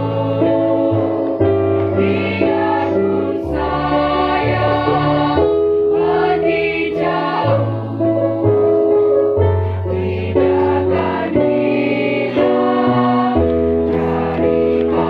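A choir singing in harmony, held chords changing every second or two over a low bass line.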